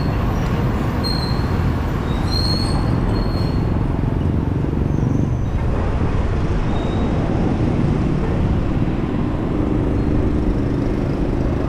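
Steady rushing of wind and road traffic heard from a moving bicycle, strongest in the low range, with a few faint short high chirps in the first few seconds.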